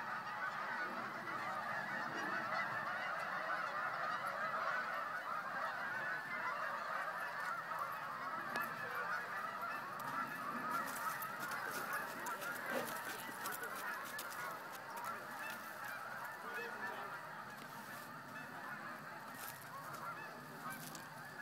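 A flock of geese honking: many overlapping calls blended into a continuous din, easing off over the last few seconds.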